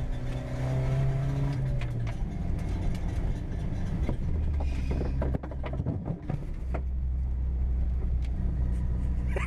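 A Volvo's engine running on the move, with a broken, cable-tied exhaust clattering and scraping underneath the car. A dense run of sharp knocks comes in the middle as the exhaust is torn off.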